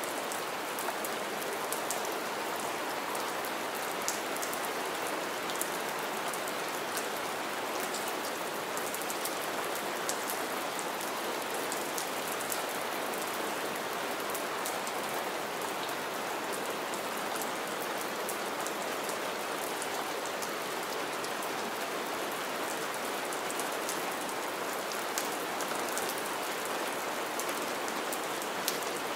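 Steady rain falling on wet ground littered with pine needles, an even hiss dotted with many small, close drop splashes.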